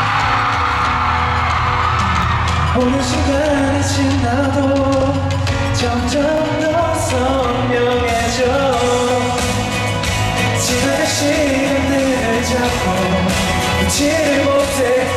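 Male singer singing a pop song live into a microphone over amplified backing music.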